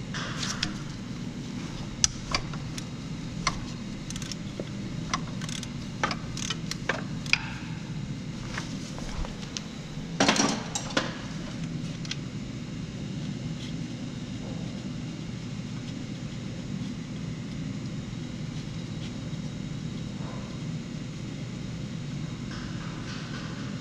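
Metal wrench clicking and clinking against the alternator bolts, in irregular sharp clicks for the first several seconds, with a short louder rattle about ten seconds in, over a steady low hum.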